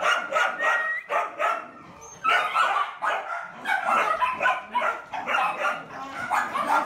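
Dogs in shelter kennels barking in quick, overlapping barks, with a short lull about two seconds in.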